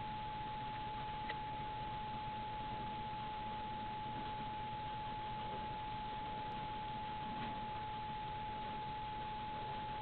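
A steady high-pitched whine held on one pitch over a constant hiss, with a few very faint brief rustles.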